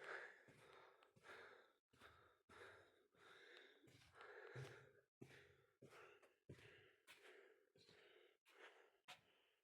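Near silence, with faint soft footsteps at a walking pace, about two a second.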